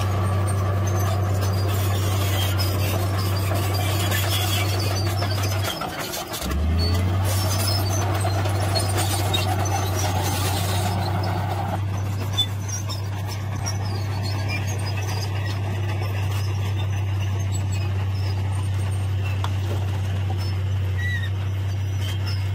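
Heavy diesel engines running with a steady low drone, which breaks off for a moment about six seconds in: first a Komatsu D53P bulldozer pushing soil, then a loaded dump truck as it raises its bed to tip its load.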